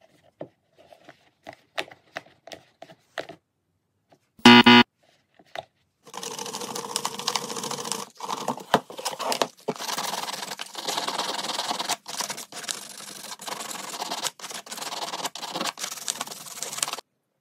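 Light handling knocks on a plastic bucket, then one loud knock about four and a half seconds in. From about six seconds, hand-held sandpaper scrubs back and forth on the bucket's plastic around the crack: a steady scratchy rasp broken by short pauses between strokes, which stops shortly before the end.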